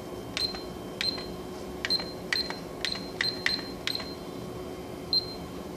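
Numeric keys on a Canon photocopier's control panel being pressed one at a time to type in an IP address, about nine presses at uneven intervals. Each press gives a sharp click and a short high beep.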